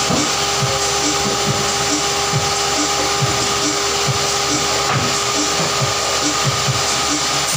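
Woodworking shop machinery, most likely the panel saw's motor and blade, running steadily without cutting: an even mechanical hum and whine with a constant hiss. Soft low thumps come through now and then as plywood pieces are handled.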